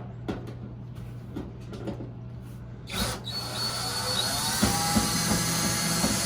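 Power drill backing out the screws of a dryer's air chute panel. A few light clicks and knocks come first, then about three seconds in the drill runs steadily for about four seconds, its pitch rising as it spins up.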